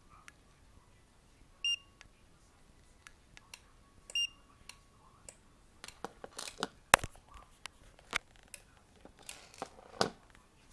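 Two short electronic beeps about two and a half seconds apart from an Eaglemaster E8 car alarm set, followed by a run of clicks and rustling handling noise.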